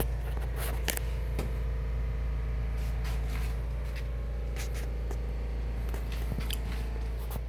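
Steady low hum of room tone with a few faint, scattered clicks and handling noises.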